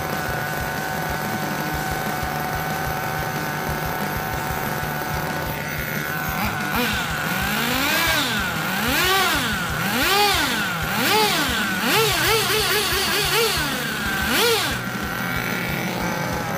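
Kyosho Inferno MP9 1/8 nitro buggy's glow engine, freshly broken in, idling steadily. About six seconds in, it is revved in a series of rising and falling blips, several quick short ones, then a last rev, before settling back to idle.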